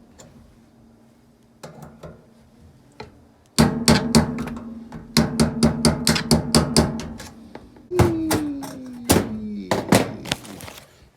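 Hammer blows on a pointed punch or chisel set against a road bike's freewheel, driving it to knock it loose. A few light knocks come first, then from about a third of the way in, quick runs of sharp metal strikes, several a second, with pauses between them.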